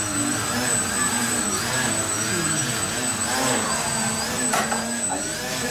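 Small electric motors and propellers of foam aerobatic RC planes whining, the pitch rising and falling with the throttle as the planes hover.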